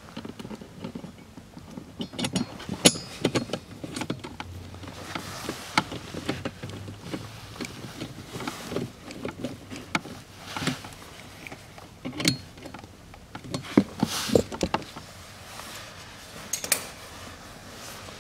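Irregular clicks, taps and knocks of a hand tool and plastic and metal parts being handled while a bolt is done up on a bracket under a car's dashboard.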